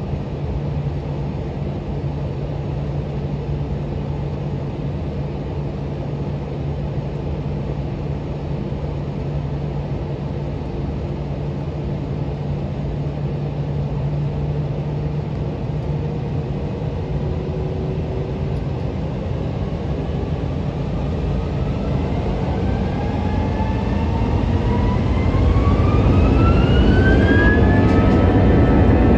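Airbus A321's jet engines heard from inside the cabin over the wing: a steady low hum at low thrust while the airliner rolls, then about three-quarters through the engines spool up to take-off power, a whine rising in pitch as the noise grows louder and then holds.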